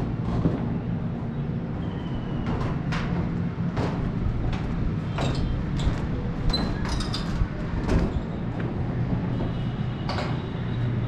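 A vehicle crossing the bridge: a steady low engine hum under irregular sharp clanks and bangs, with a few brief high squeals.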